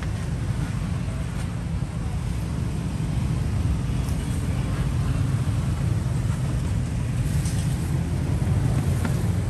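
Steady low engine rumble of a vehicle under way, running evenly without revving.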